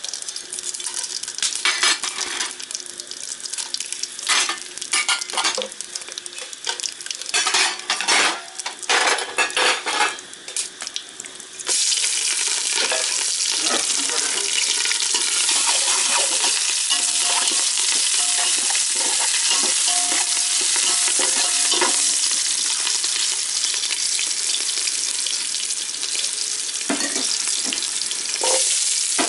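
Whole spices crackling in hot oil in an aluminium pot, with scattered clicks and clinks; about twelve seconds in, a loud, steady sizzle starts as green chillies and bay leaves go into the oil, and keeps frying.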